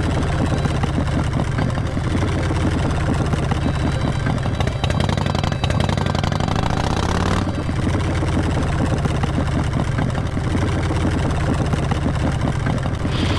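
Motorcycle engine running at low revs as the bike rolls slowly, looking for a parking space. About six seconds in the revs climb briefly, then drop off sharply just past seven seconds.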